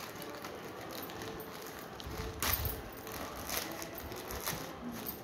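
Plastic courier mailer being opened by hand, crinkling and rustling as the packet inside is pulled out, with a sharp crackle of plastic about two and a half seconds in.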